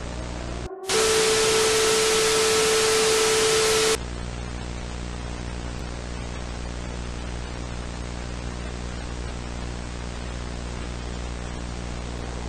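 A low, steady electronic drone, cut about a second in by roughly three seconds of loud static hiss with a steady tone running through it. The static cuts off suddenly and the drone carries on alone.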